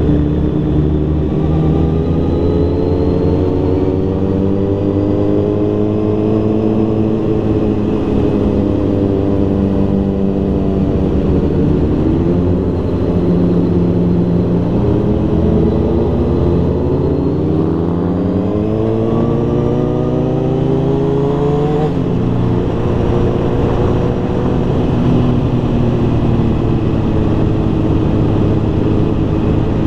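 Engine of a road vehicle on the move, rising in pitch as it accelerates and dropping at gear changes about 12 s and 22 s in, over a steady low drone.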